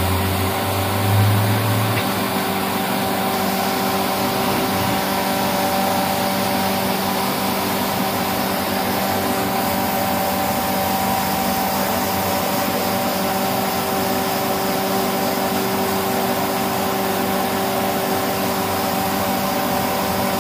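Compressed-air spray equipment running steadily while hydrochrome (mirror chrome) solution is sprayed: a constant airy hiss over a steady machine hum, with a brief louder low rumble about a second in.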